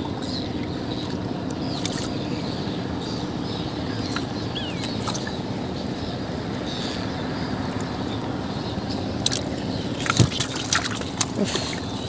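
Water sloshing and dripping around a small boat as a wet gill net is pulled in over the side, with a few sharp knocks and splashes in the last couple of seconds. Faint bird chirps are heard behind.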